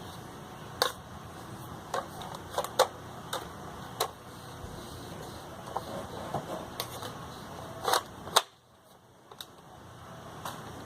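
Sharp plastic clicks and knocks from a Nerf blaster being handled, cocked and fired with a suction-cup dart, coming irregularly with the loudest pair about eight seconds in.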